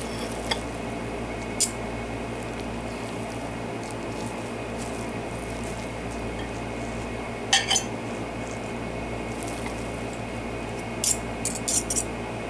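A utensil clinking and scraping against a dish while soft cooked spaghetti squash is mixed, with a few sharp clinks and a cluster of them near the end, over a steady kitchen appliance hum.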